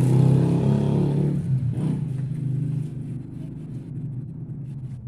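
An engine running nearby with a steady low hum, louder for the first three seconds and then settling to a lower level.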